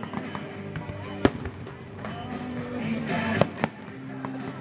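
Fireworks bursting: a sharp bang about a second in, then two more in quick succession past three seconds. Pop music plays underneath throughout.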